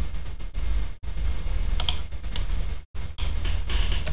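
A few separate clicks of a computer keyboard and mouse over a steady low hum, which drops out briefly twice.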